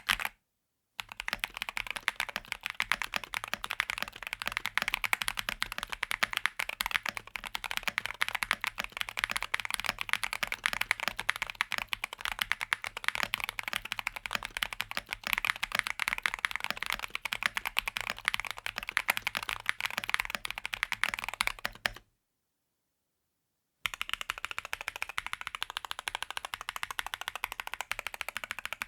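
Fast continuous typing on a Rexus DAXA M61/M64 mechanical keyboard, a dense stream of key clicks, cut off twice by brief dead silence: just after the start and about 22 seconds in.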